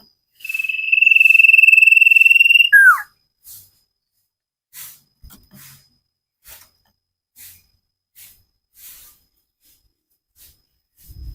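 Common iora (cipoh) singing one long, steady high whistle of about two seconds that ends in a short falling note. Faint short ticks follow about once a second, with a low thump near the end.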